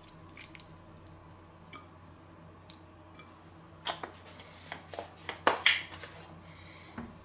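A thin pour of milk into a blender jar, faint at first. Then, about four to six seconds in, several sharp plastic clicks and crinkles as the milk carton is set upright and its screw cap twisted shut.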